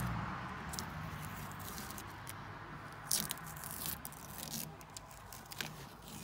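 Faint scattered scratches and clicks of hands peeling and rubbing masking tape around a truck cab's marker light, the sharpest about three and four seconds in. A low hum fades out in the first second.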